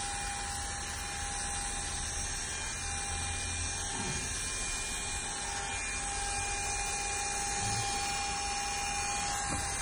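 Electric hair clippers running steadily, a constant hum with a thin high whine.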